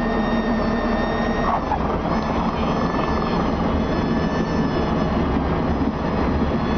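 Diamond DA40's four-cylinder piston engine and propeller running steadily, heard inside the cockpit.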